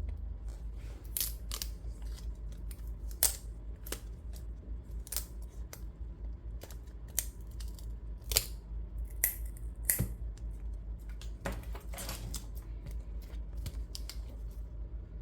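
Irregular light clicks and taps of plastic and metal laptop parts being handled and pried during a laptop screen-panel disassembly, with a steady low hum underneath.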